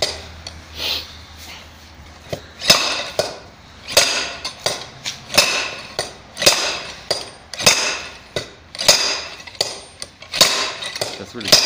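Slide hammer on an injector puller clanking against its stop, a dozen or so sharp metallic blows about a second apart. It is working a seized diesel injector loose from the cylinder head.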